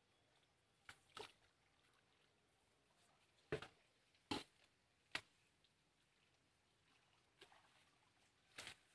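Near silence, broken by a few faint, sharp clicks or knocks at irregular intervals.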